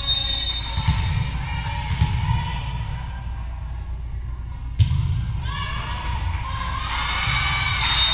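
Volleyball ball bouncing on a gym floor a couple of times, then the sharp smack of a serve about five seconds in, followed by players and spectators shouting during the rally. A short, high whistle blast sounds at the start and again near the end.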